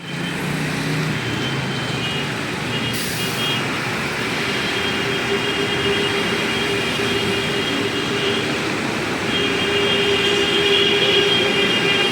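Heavy road traffic: a steady rumble of engines with vehicle horns honking over it, held longer and more often in the second half.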